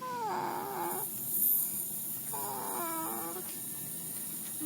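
Baby crying in two drawn-out whimpering moans, each falling in pitch and then holding, while he recovers just after surgery to repair a VSD and ASD.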